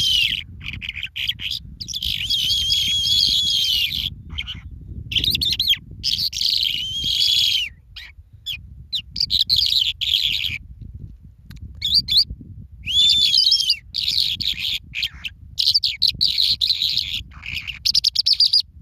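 Birds chirping and calling in bouts of one to two seconds with short pauses between, some calls wavering whistles, over a steady low background rumble.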